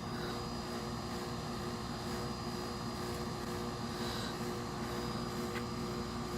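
Steady machine hum with several held tones, with a faint tick about five and a half seconds in.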